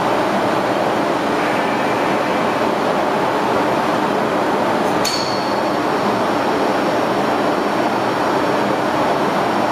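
Large three-phase AC motor running steadily without load on the test panel: a loud, even hum and fan rush with a few steady tones. A short sharp click with a brief high ring about five seconds in.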